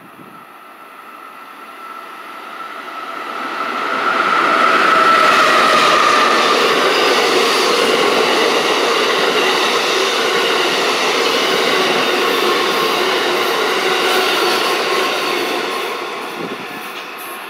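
Amtrak Northeast Regional train, an ACS-64 electric locomotive hauling Amfleet coaches, passing through at speed. The rumble of wheels on rail builds over about four seconds, holds steady while the cars go by, and fades near the end. A high whine, loudest as the locomotive draws level, drops slightly in pitch as it passes.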